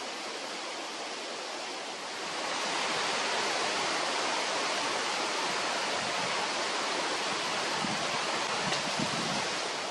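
Steady rain falling, a dense even hiss that grows louder about two seconds in, with a couple of faint taps near the end.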